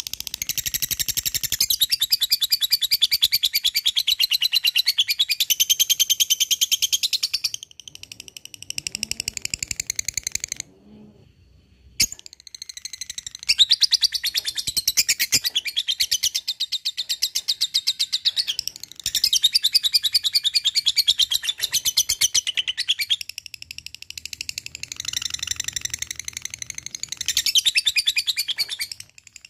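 Lovebird giving its 'ngekek': long, very rapid high-pitched chattering trills in several extended bouts, with a brief break about eleven seconds in.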